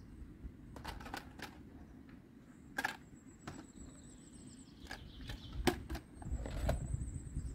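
Clicks and knocks of a portable gas camping stove and its hard plastic carry case being handled: a quick run of clicks about a second in, a louder knock near three seconds, and a few more clicks later.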